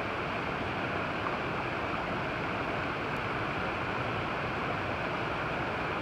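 Steady rushing of water from small cascades spilling over rocks into a river pool.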